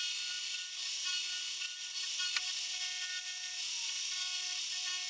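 Milling machine end mill cutting the spur points into a 1020 steel blank: a steady high whine and hiss of the cut, with a single sharp click about two and a half seconds in.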